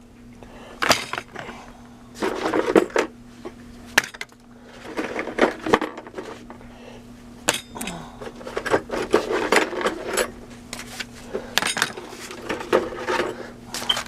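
Screwdrivers clinking and clattering against one another as a handful are taken out and set down: a run of irregular metallic clicks and knocks.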